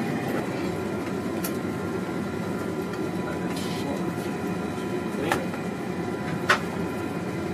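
Steady low hum of equipment and air handling inside a submarine's control room, with faint steady tones and a few sharp clicks.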